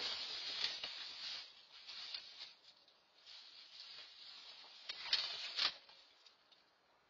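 A black bear rummaging through trash: bags and wrappers rustling and crinkling in uneven bursts, with a few sharp clicks and knocks. It is loudest around the first second and again a little past five seconds in, heard through a Nest security camera's microphone.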